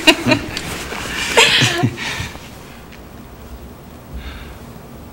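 A woman laughing softly and breathily, dying away about two seconds in.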